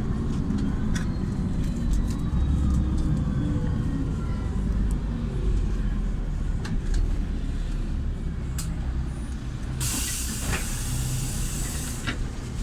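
LiAZ 5292.67 city bus with its YaMZ-53624 compressed-natural-gas engine running with a low rumble. About ten seconds in, there is a loud hiss of air from the bus's pneumatic system, lasting about two seconds.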